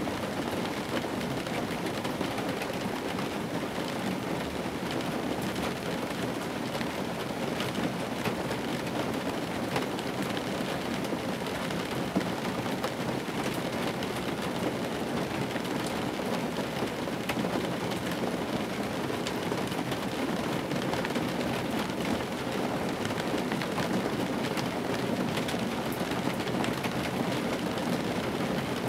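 Steady rain falling on an old car's roof and windshield, heard from inside the cabin, with many small ticks of single drops hitting the metal and glass.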